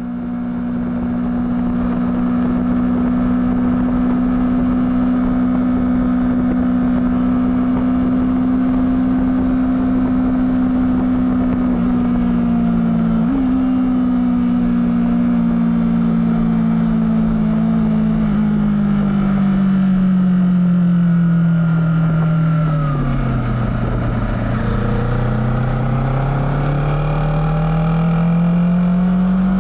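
Honda CBR250RR engine through its stock exhaust, running at steady high revs, with a brief jump in pitch about 13 s in. The revs then fall slowly for about ten seconds and climb again near the end.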